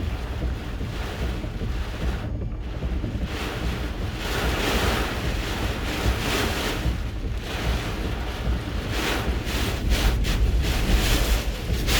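Hurricane eyewall winds gusting hard against a vehicle. The steady rush of wind swells in surges every few seconds, with a heavy low rumble of wind on the microphone.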